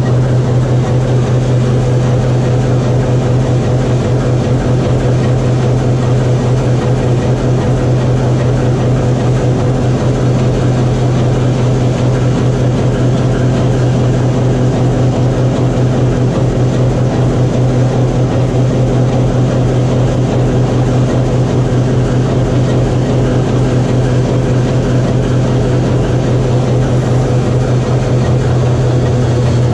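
TEM2UM shunting locomotive's six-cylinder PD1M diesel engine running steadily under load-test power, a loud even low hum with no change in speed.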